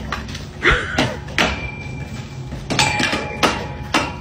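A wire frame caught on a dog knocking and rattling against a wooden fence and the ground as the dog drags it. There are a string of sharp knocks and a thin high-pitched ring midway.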